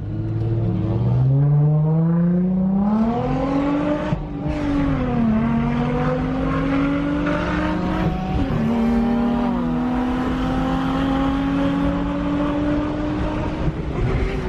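Car engine accelerating hard under full throttle, its pitch climbing steadily and dropping at two upshifts, about four and eight seconds in, then climbing slowly again.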